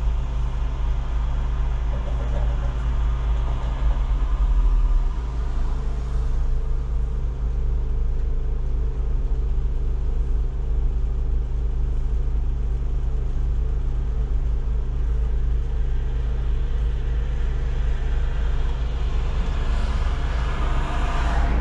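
Solaris Urbino 18 articulated city bus under way: a steady low engine rumble with road noise, swelling in the higher noise near the end.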